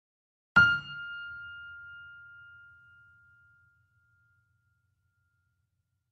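A single electronic chime-like ding struck once with a low boom under it, ringing out and fading away over about three seconds: an intro sound effect.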